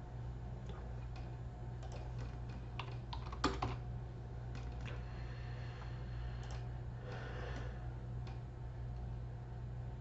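Computer keyboard typing in scattered keystrokes, with a cluster of louder clicks about three and a half seconds in, over a steady low hum.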